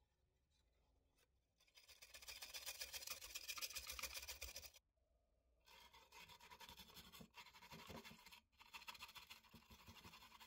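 Steel wire brush scrubbing paint softened by paint stripper off a rusty steel toy truck part, a fast scratchy rasp in two spells with a short pause about halfway through.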